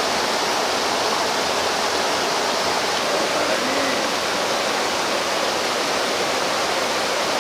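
Steady rush of flowing water, an even hiss that holds without a break.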